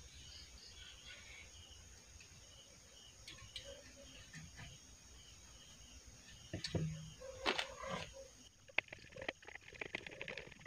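Faint handling noise: small clicks and knocks of a bolt being fitted into a wooden transformer frame, starting about two-thirds of the way in. Faint high chirping runs in the background before the clicks.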